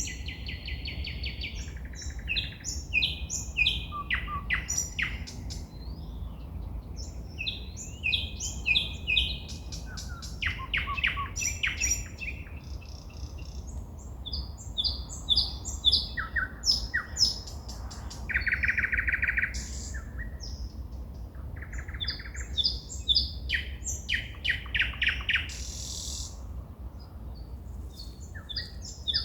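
A songbird singing at night: a varied song of rapidly repeated notes, trills and buzzy phrases with short pauses between them. A steady low rumble runs underneath.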